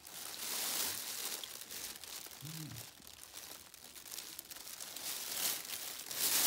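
Emergency foil blanket crinkling and crackling as a baby moves on it, louder in spells. About two and a half seconds in the baby gives one short coo.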